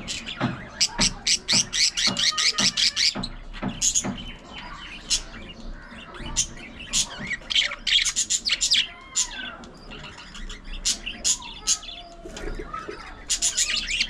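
Several budgerigars chattering: quick runs of short, sharp chirps with softer warbling calls between them, thinning out briefly about two-thirds of the way through.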